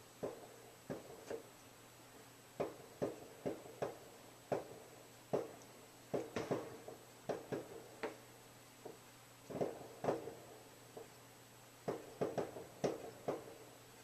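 Firecrackers going off in the background: dozens of sharp pops at irregular intervals, several coming in quick runs.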